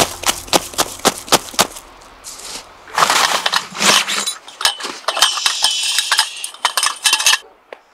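A quick run of sharp crunches and knocks, then a longer scraping crunch and a stretch of rustling and scraping, the sounds of pitching a tent in snow.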